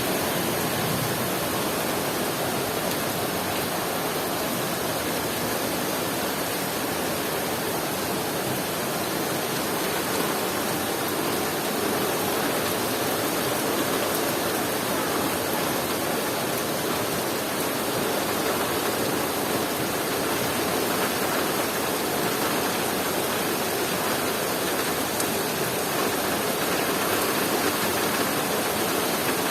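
Heavy rain falling steadily, a dense even hiss of rain with no thunder clap.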